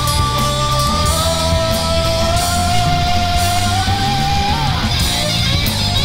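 Rock band playing an instrumental passage: a lead electric guitar holds long sustained notes, bending one up and letting it fall away about four and a half seconds in, over bass guitar and drums.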